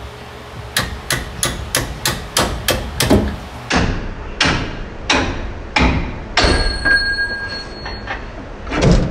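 Hammer blows on steel at a pickup's rear leaf spring and axle, knocking at the spring mounting to free it for removal. First a quick run of about eight strikes, roughly three a second, then slower, spaced blows, with a hard one near the end.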